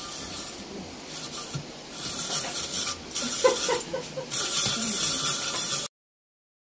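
Hand-cranked Saladmaster food processor shredding carrot, its turning cone blade rasping through the carrot in gritty bursts. The sound is fainter for the first two seconds, louder after, and cuts off suddenly near the end.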